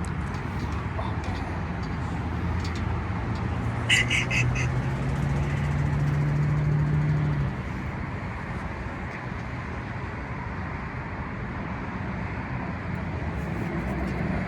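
Roadside vehicle noise: a steady low rumble, with an engine drone that rises slowly in pitch and cuts off suddenly about seven and a half seconds in. About four seconds in comes a quick run of four or five short, high, nasal honk-like notes.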